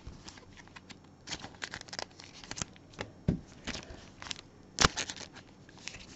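Trading cards being handled and sorted with gloved hands: irregular clicks, taps and crinkles of cards, plastic sleeves and a foil pack wrapper. The sharpest click comes a little under five seconds in.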